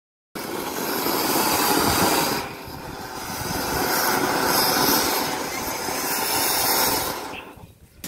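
A flowerpot firework (anar) burning, its fountain of sparks giving a loud, steady rushing hiss. The sound starts abruptly just after the beginning, dips briefly about two and a half seconds in, then swells again before dying away near the end.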